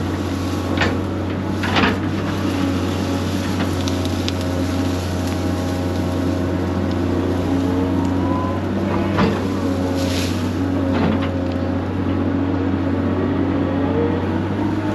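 Excavator's diesel engine running steadily under load, with a hydraulic whine that bends up and down in pitch twice as the arm works, and several short sharp clanks.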